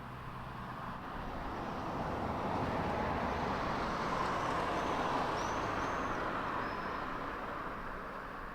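A road vehicle passing by, its tyre and engine noise swelling to a peak about halfway through and then fading away.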